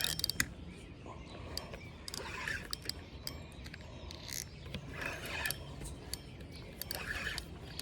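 Fishing reel clicking and ratcheting in short, uneven bursts as a hooked fish pulls line off the drag while it is being reeled in.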